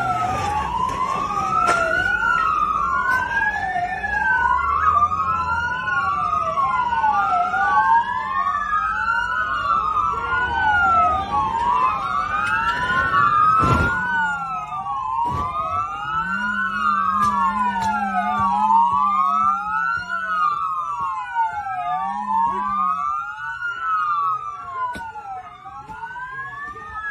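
Police sirens wailing, two or more overlapping out of step, each rising and falling about every two seconds, with a sharp knock about halfway through; the sirens ease off slightly near the end.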